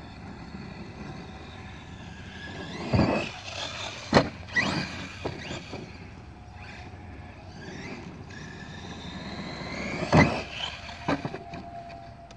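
Brushless electric motor and drivetrain of a DHK Zombie 8e 1/8-scale RC buggy on 4S, whining up and down in pitch with the throttle. Several sharp thuds of the buggy hitting the ground off jumps, the loudest about 3, 4 and 10 seconds in.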